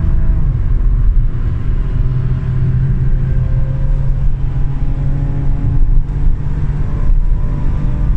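Holden Commodore VXR engine heard from inside the cabin, running hard at high revs with road and tyre noise, as the car accelerates down the straight towards nearly 190 km/h.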